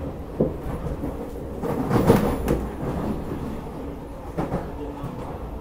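C151A MRT train heard from inside the car as it runs along the track: a steady rumble with irregular clunks and rattles from the wheels and car body, loudest about two seconds in.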